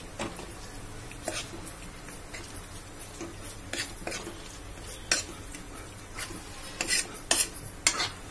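Metal spatula scraping and knocking against a metal kadhai as khoya is stirred and pressed to melt it in ghee: irregular scrapes and clinks, several louder ones near the end.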